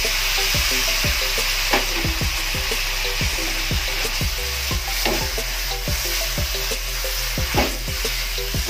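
Chicken livers and gizzards sizzling in a hot wok while being stir-fried. A spatula knocks and scrapes against the metal pan about two or three times a second, with louder clanks about two seconds in and near the end.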